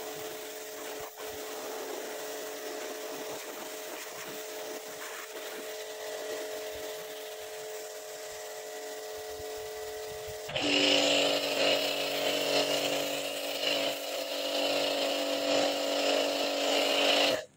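The Energy Cube machine's electric motor running with a steady hum. About ten seconds in it gets louder and higher-pitched, then stops suddenly just before the end.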